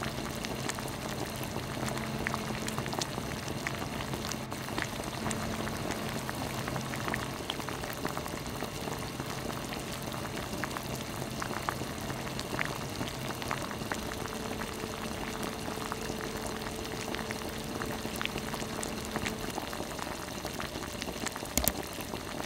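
Creamy chicken stew simmering: a steady bubbling hiss full of small pops, with a couple of louder knocks near the end.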